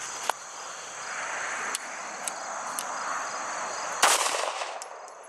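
Zastava CZ999 Compact 9mm pistol fired once about four seconds in, a single sharp report with a short ringing tail, after a sharp click near the start and a few lighter clicks. The pistol is clogged with rock dust, so its slide does not close fully after the shot. Insects buzz steadily throughout.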